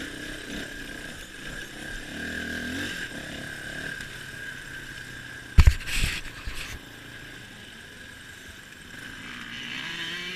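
Suzuki DR350 trail bike's single-cylinder four-stroke engine running under way, its revs rising and falling, picked up close by a helmet camera. Two sharp, loud knocks come a little past halfway.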